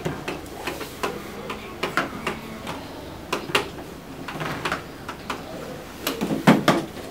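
Hollow plastic ball-pit balls clicking and clacking irregularly against each other and the plastic wading pool as they are handled, busier and louder near the end.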